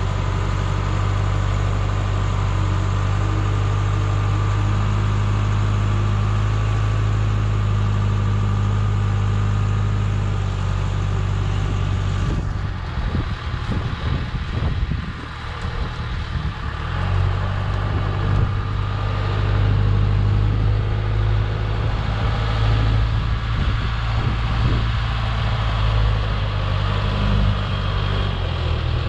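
John Deere 410B backhoe's diesel engine running steadily. About twelve seconds in its steady hum breaks up and dips for a few seconds, then settles back slightly louder.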